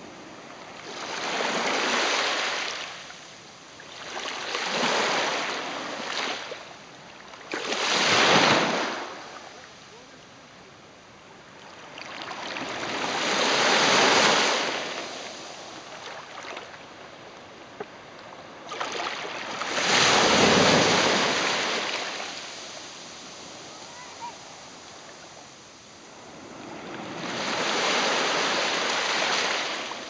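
Small sea waves washing up over sand at the water's edge, foam fizzing in the shallow swash. Six surges of rushing water swell and fade a few seconds apart, with a softer hiss between them.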